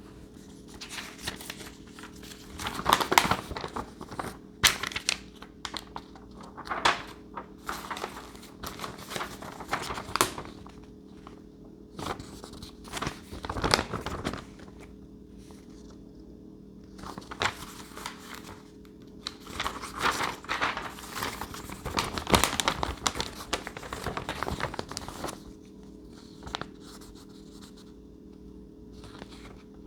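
Plastic packaging crinkling and rustling in irregular bursts as parts are handled, with a steady low hum underneath.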